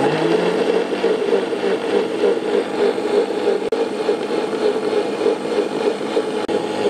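Electric mixer-grinder running steadily, blending chopped dragon fruit with sugar and milk into a milkshake.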